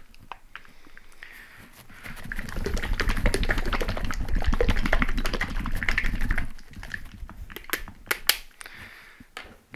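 Two plastic bottles of homemade e-liquid shaken hard by hand, a fast clattering rattle that is heaviest for about four seconds in the middle. The shaking mixes the added flavour concentrate into the nicotine base.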